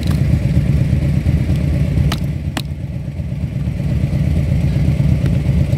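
A motorcycle engine idling with a steady low rumble. Two sharp clicks half a second apart, about two seconds in, as a helmet's clear visor is pressed back onto its side mount.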